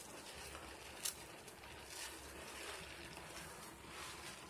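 Hands squeezing and rubbing thick soap lather, a faint wet squishing and crackling of foam, with one sharp click about a second in.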